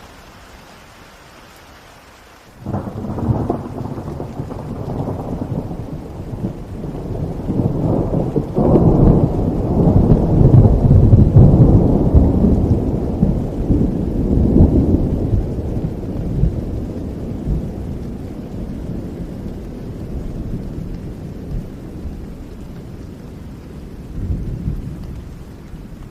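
Steady rain with a long roll of thunder that breaks suddenly about two and a half seconds in, swells to its loudest around ten seconds in, and rumbles away slowly, with a smaller rumble near the end.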